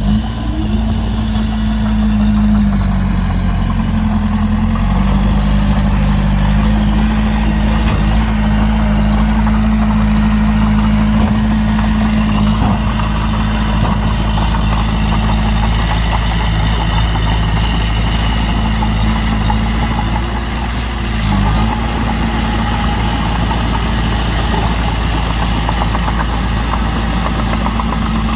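Heavy diesel engine of a dump truck or bulldozer running steadily near idle. Its note shifts a few seconds in and dips briefly near the end.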